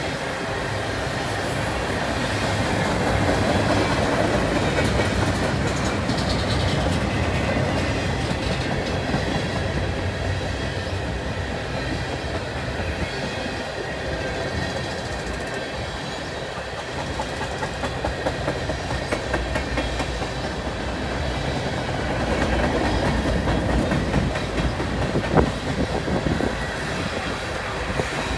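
Freight train of rail tank cars rolling past: a steady rumble of steel wheels on rail with clickety-clack over the rail joints, and one sharp clack near the end.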